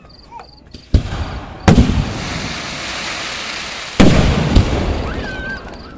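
Aerial fireworks shells bursting overhead: four loud booms, two of them much louder than the others, with a crackling hiss lingering between the bursts.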